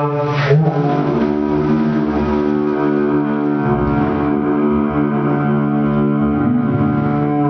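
Music: held chords that change every second or two.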